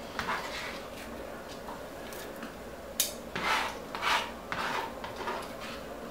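Kitchen utensils being handled: several short scrapes with a sharp click about three seconds in.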